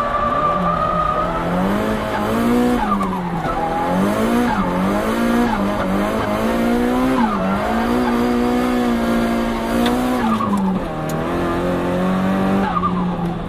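Nissan Silvia S15 with an HKS GTIII turbo, its engine held at high revs. The engine note rises and dips again and again as the throttle is worked, with tyres squealing as in a slide. The revs drop about eleven seconds in.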